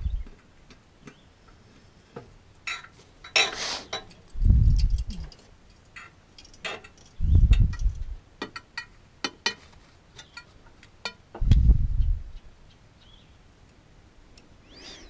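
Scattered sharp metal clicks and clinks of a wrench working on a blade bolt under a Husqvarna garden tractor's mower deck. Several dull low thumps about three to four seconds apart are the loudest sounds, with a brief hiss about three and a half seconds in.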